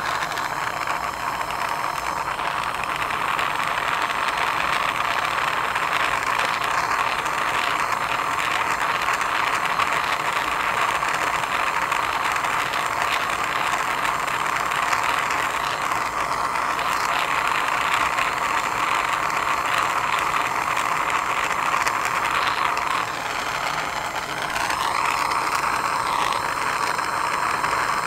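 Jeweler's soldering torch flame burning with a steady rushing hiss as it heats a silver ring to flow solder. It starts abruptly, dips and wavers briefly a few seconds before the end, then cuts off.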